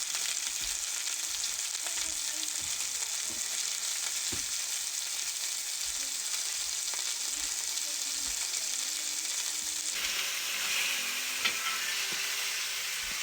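Burger patties sizzling in a frying pan: a steady frying hiss with small scattered pops.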